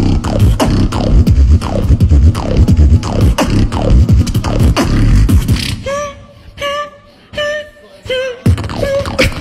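Beatboxing into a handheld microphone through a PA: a fast, heavy bass-kick beat with downward-sliding bass notes. About six seconds in it drops to a quieter run of short, wavering pitched vocal notes, and the heavy beat comes back near the end.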